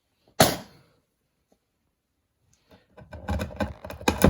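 Steel wood chisel cutting the hinge recess in a door edge: a single sharp knock, then about two seconds of rough chiselling and scraping at the wood, with a loud strike near the end.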